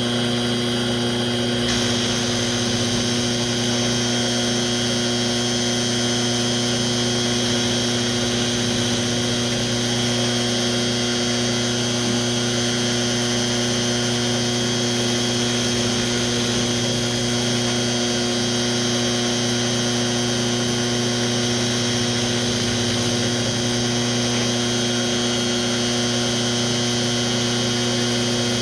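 Electric drill motor running steadily at constant speed while drilling the tuning pin holes in a piano pinblock.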